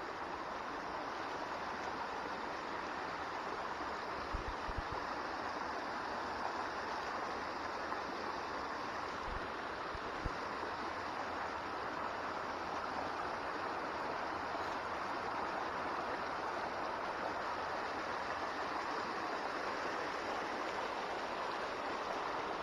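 Small mountain stream running steadily, a continuous even rush of water, with a few faint low knocks along the way.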